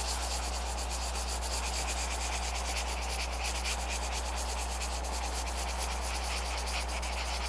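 Coloured pencil scratching across paper in rapid, even shading strokes, layered to blend the colours into an even tone, over a steady low hum.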